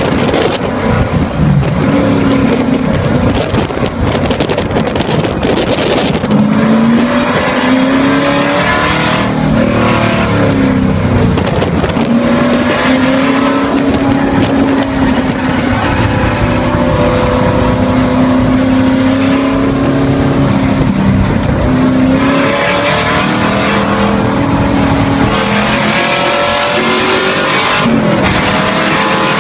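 Onboard sound of a V8 race car on track, its engine loud over wind and road noise. The engine note falls as the car brakes and slows for a corner near the middle, then rises again under acceleration, dropping suddenly at upshifts twice near the end.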